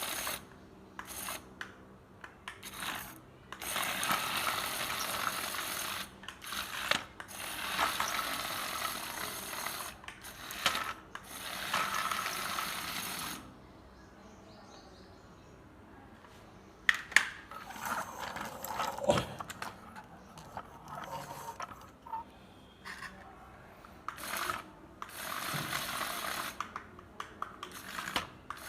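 Small geared electric motors of a remote-control combine harvester model whirring in runs of one to a few seconds, stopping and starting, with clicks and rattles in between.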